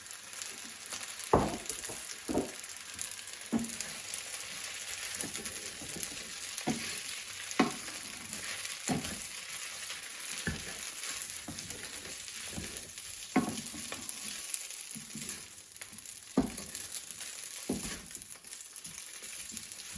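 Glass noodles sizzling as they stir-fry in a hot pan, with a steady hiss. A cooking utensil knocks against the pan about a dozen times at irregular moments as the noodles are stirred.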